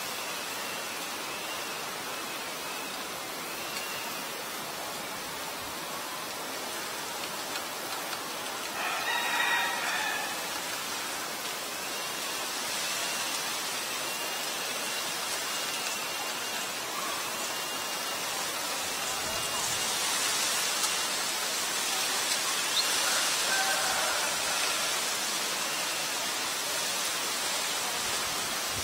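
Steady outdoor hiss, with a rooster crowing once about nine seconds in and faint short high chirps now and then.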